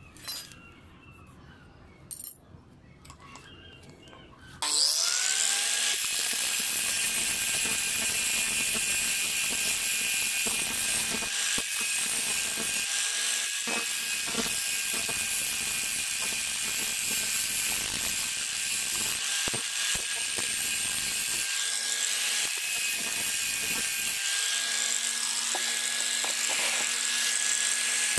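A couple of faint clicks, then an electric angle grinder switches on about four and a half seconds in. Its pitch rises as it spins up, and it runs steadily while its disc grinds the surface of a steel scissor blade.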